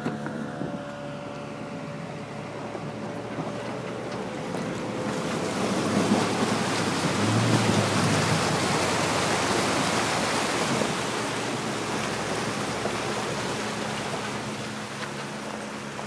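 Chevy Silverado pickup running with a steady engine hum, then a loud rushing splash of water builds about five seconds in as the truck churns through the creek, peaks and dies away near the end, leaving the engine hum again.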